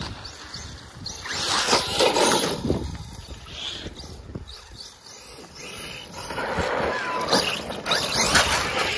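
Electric Traxxas RC monster truck driving: its motor whine and tyre noise swell in two surges, about a second and a half in and again from about six seconds in, with wind rushing over the microphone.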